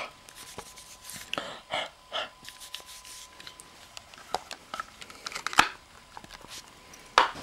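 Bedclothes rustling and handheld-camera handling noise, with scattered soft clicks and two sharper knocks, one about five and a half seconds in and a louder one just before the end.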